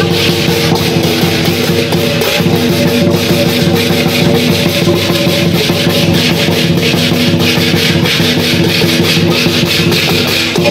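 Lion-dance percussion band playing: a drum with clashing cymbals in a rapid, steady beat of about four to five strokes a second.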